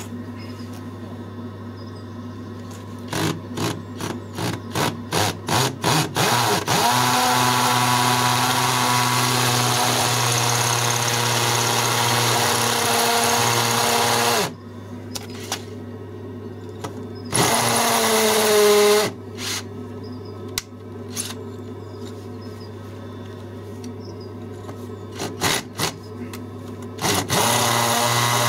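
Power drill boring into a rendered exterior wall. It starts with a string of short trigger bursts, then runs steadily for about seven seconds. A shorter run follows whose pitch sags near its end, and a few more short bursts and another run come near the end.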